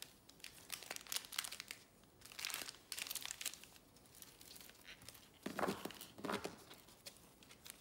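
Foil trading card packs crinkling as gloved hands pick them up and handle them, in several short bursts of crackling rustle.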